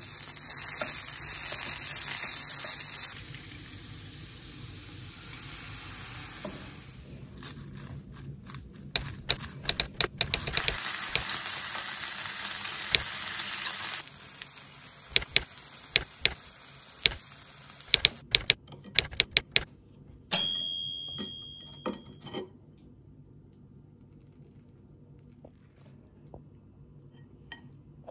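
Noodles and okonomiyaki sizzling on a hot plate in two stretches that each cut off abruptly, with light clicks and taps of utensils between them. About twenty seconds in comes a single sharp, ringing clink.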